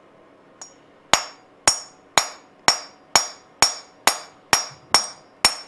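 Small hammer tapping a steel Allen-bolt drift, ten sharp metallic taps about two a second with a short high ring after each, driving new throttle shaft bushings into an S&S Super B carburetor body.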